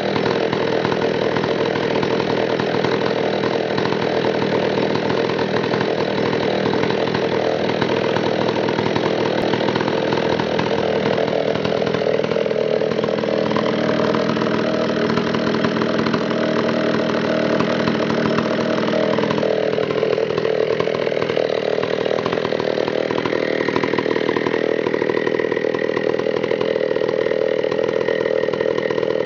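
McCulloch 440 two-stroke chainsaw running at high speed while cutting through a log. Its engine note steps up partway through and drops back as the load changes, with a higher whine coming in near the end.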